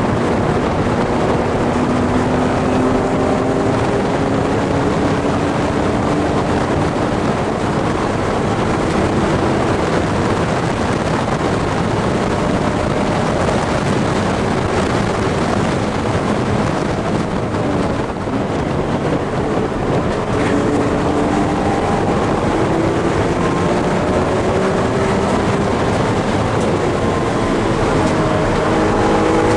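BMW E46 M3's straight-six engine under hard acceleration on a race track, heard from inside the cabin, its pitch climbing as it pulls through fourth gear toward about 7,400 rpm, with heavy wind and tyre noise. About eighteen seconds in it dips briefly, then climbs again in third gear.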